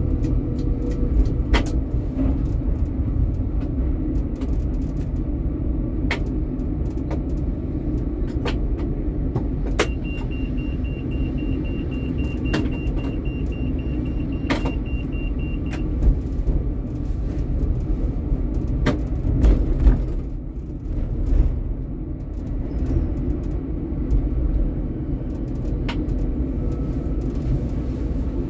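Helsinki tram running, a steady low rumble with frequent sharp clicks and knocks. A rapid high-pitched beeping sounds for about six seconds midway.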